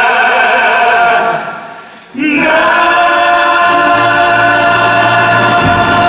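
The male cast of a stage musical singing together in long held notes. The first chord fades out about two seconds in, then a new chord is sung and held, with a low bass note joining under it near the middle.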